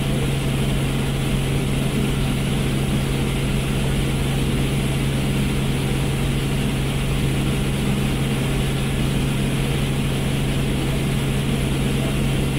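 Helicopter in flight heard from inside the cabin: a steady drone of rotor and engine with a strong, even low hum that does not change.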